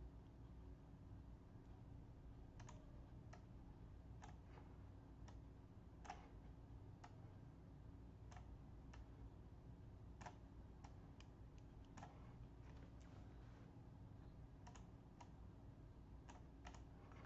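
Faint, irregular clicking of a computer mouse, roughly one click a second, over a steady low hum.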